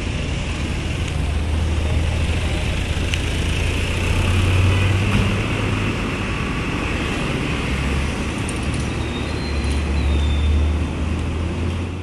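Road traffic: a steady low engine rumble with motorcycles and other vehicles passing.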